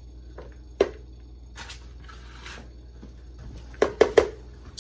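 A plastic slotted spoon scraping roasted vegetables off a foil-lined sheet pan into a mixing bowl: a sharp tap, two short scrapes, then a quick cluster of clicks and knocks near the end as the spoon is set down in the bowl.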